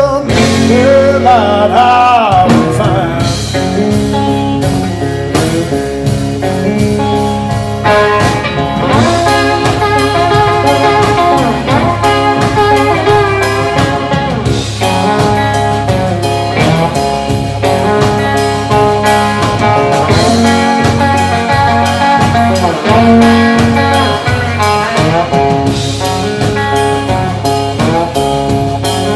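Live blues music: a guitar leads with bending notes over bass and drums.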